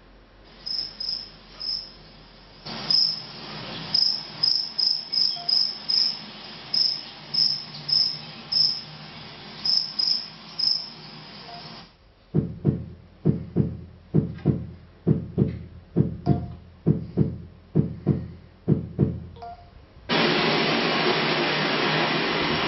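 Sound-effect recordings played back on a Logitech Squeezebox Touch. First comes cricket chirping, short high chirps in small clusters. About 12 s in it changes to a recorded heartbeat, low double thumps about once a second, and about 20 s in it changes to a steady, louder wash of ocean surf.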